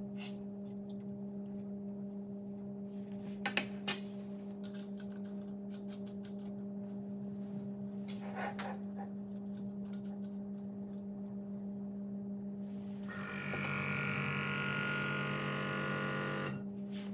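Small airbrush compressor humming steadily, with a few light clicks of fittings being handled. About thirteen seconds in, a hiss of air through the airbrush starts and runs for about three and a half seconds, then stops.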